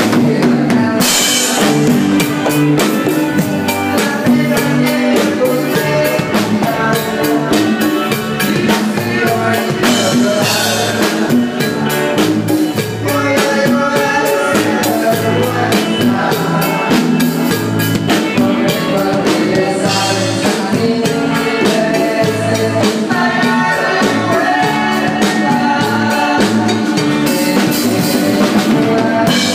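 Live band music: a drum kit keeping a steady beat under electric guitar, with a cymbal crash roughly every ten seconds.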